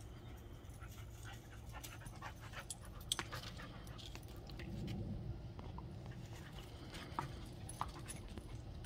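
Dogs panting during rough play, with scattered sharp clicks.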